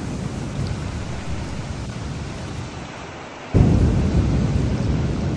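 Steady heavy rain, then a sudden loud thunderclap about three and a half seconds in that rolls on as a low rumble.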